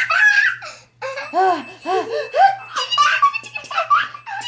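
A young child giggling and laughing while being tickled: bursts of laughter, a short break about a second in, then a quick run of rising-and-falling laughs.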